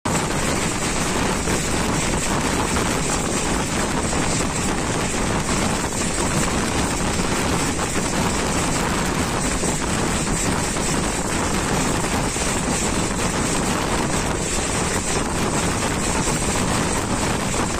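Train running at speed, heard from on board: a steady rush of wheel-and-rail noise mixed with wind.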